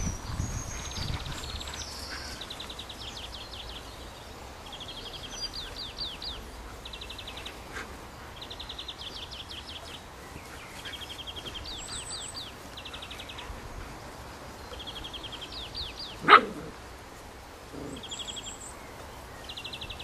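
An Old English Sheepdog barks once, sharply, late on. This is the loudest sound. Songbirds sing short repeated trills throughout.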